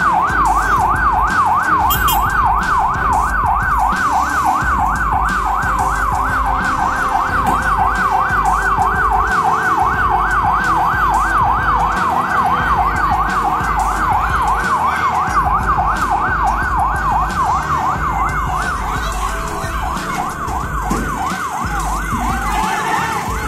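Emergency vehicle's electronic siren in fast yelp mode, its pitch sweeping up and down about three times a second, loud and steady before fading out near the end, over a low rumble.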